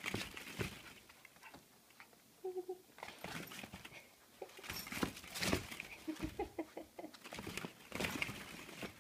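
Hollow plastic ball-pit balls clattering and knocking together in irregular bursts as a Shiba Inu puppy scrambles through them. A short squeak comes about two and a half seconds in, and a quick run of short squeaks a little past six seconds.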